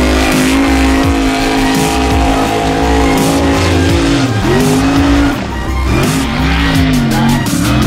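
Mega truck's high-revving race engine at full throttle on a dirt drag run, holding a steady high pitch, then dipping and climbing back up in pitch several times in the second half.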